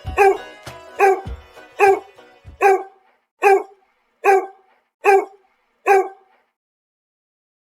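A dog barking in a steady series, about one bark every 0.8 seconds, eight barks in all, over background music. The music stops about three seconds in, and the barks carry on alone for about three more seconds, then stop.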